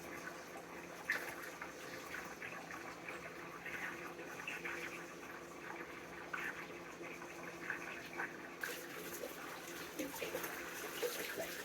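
Bath water draining out of a sink with ducks still sitting in it, a steady watery trickle with small splashes and gurgles. A louder rushing sound joins about eight and a half seconds in.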